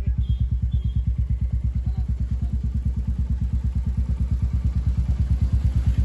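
Royal Enfield Meteor 350's single-cylinder engine idling through a Red Rooster Performance Polestar aftermarket silencer: a steady, even exhaust beat.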